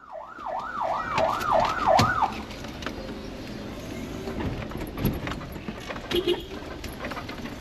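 Electronic siren wailing in a fast yelp, rising and falling about three times a second, which stops after about two seconds; then street noise with scattered knocks.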